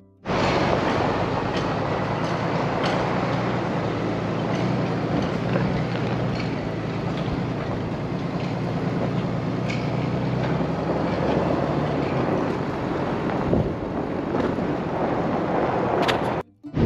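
Wind blowing hard across the microphone, with a steady low engine hum underneath that drops away about twelve seconds in.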